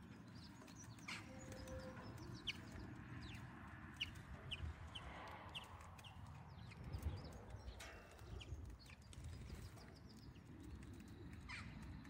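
Great tit pecking at peanuts through a wire-mesh feeder: irregular sharp taps and clicks, a run of them about twice a second a few seconds in, over a low steady rumble.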